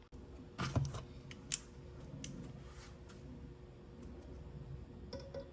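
A few sharp clicks and light knocks of hand tools and small metal engine parts being handled on a workbench, loudest in a short cluster just under a second in, with a single click about half a second later.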